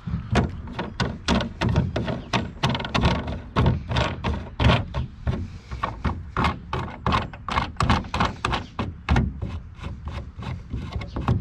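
Rapid, irregular clicking and knocking from handling and tightening the knob-handled clamp screws of a plastic bow-mount trolling-motor bracket on an aluminum boat's gunwale.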